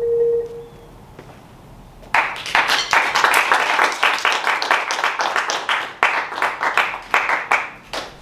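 The last note of a Marimba One marimba rings and dies away, then about two seconds in applause starts and carries on.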